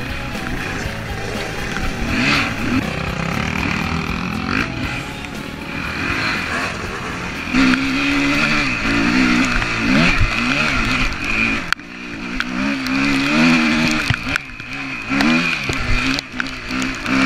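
Dirt bike engine revving and running under way, with rock music mixed over it.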